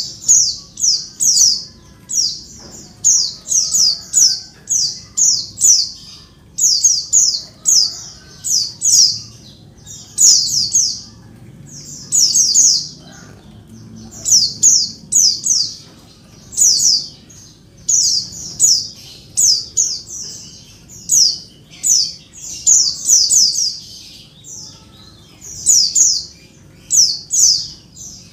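Female pleci (a white-eye) calling: thin, high notes, each sweeping down, given in quick clusters of two to four and repeated about every second. It is the female's call that bird keepers play to prompt male white-eyes to answer and sing.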